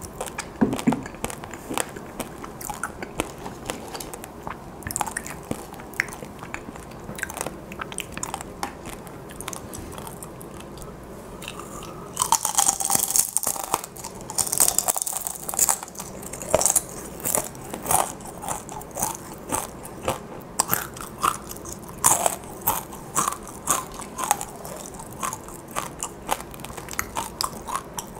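Close-miked biting and chewing of gochu twigak, dried chili peppers fried and sugared, making crisp crunches. About halfway in comes a dense, louder run of crunching, followed by a steady series of chewing crunches.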